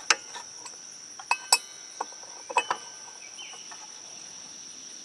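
A hex (Allen) key clicking and clinking against the arbor bolt of a Milwaukee 10-1/4 inch circular saw as the blade bolt is tightened: several sharp metallic clicks in the first three seconds, some with a short ring. A steady high insect drone runs behind.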